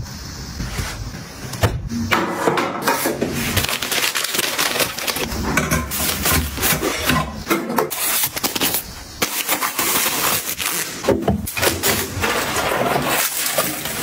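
Close-up handling sounds of household goods being restocked: packaging and plastic rustling, with many quick taps and knocks as items are picked up and set down.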